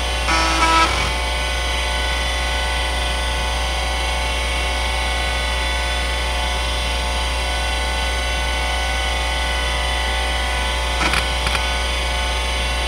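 Conner CFS210A 3.5-inch IDE hard drive (relabelled Seagate ST3211A) spinning with a steady whine over a low hum. A brief louder buzzing burst about half a second in, and a few quick head-seek clicks near the end as it starts being read to boot.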